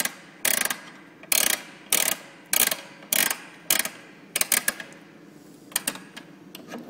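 PyroChem fire-suppression release mechanism being wound by hand to set tension on the gas-valve cable. Its ratchet clicks roughly every half-second, then gives a quick cluster of clicks about four and a half seconds in and a couple more near the end.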